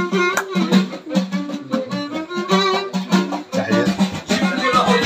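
Live chaabi folk music: a violin held upright on the knee plays a gliding melody over a steady beat on hand-held frame drums.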